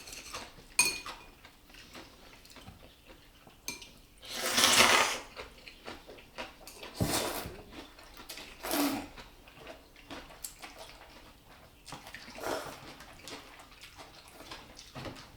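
Tableware clinking at a meal: chopsticks and spoons tapping on dishes, with a ringing clink just under a second in. Several short rushing noises come between, the loudest lasting about a second around four seconds in.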